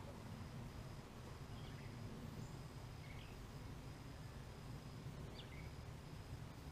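Quiet woodland ambience: a steady low rumble with a few faint, short bird chirps about two, three and five and a half seconds in.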